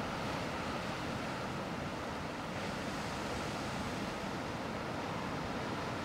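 Ocean surf washing against coastal rocks, a steady rush of foaming water with no single wave crash standing out.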